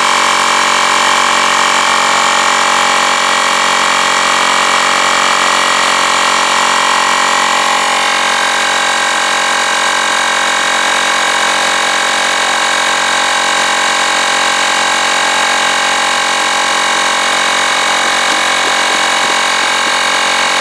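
Cordless battery-powered portable tire inflator running steadily, its small compressor pumping air toward a 36 psi auto-stop setting. The pitch shifts slightly about eight seconds in.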